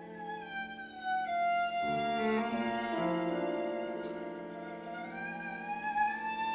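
Live chamber music: a violin plays a slow, sustained melody that slides down in pitch and later rises again, over held lower string notes.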